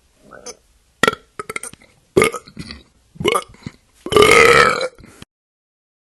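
A person belching repeatedly: a run of short burps, then one longer, drawn-out belch about four seconds in whose pitch wavers.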